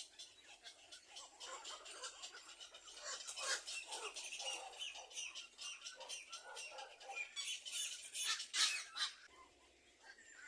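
Birds squawking in a dense run of short, high calls, loudest about eight seconds in, then fading away shortly before the end.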